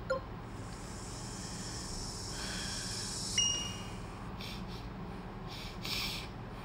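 A man breathing and sniffing, with a few short sniffs near the end as he rubs his nose. A short high beep sounds about three and a half seconds in.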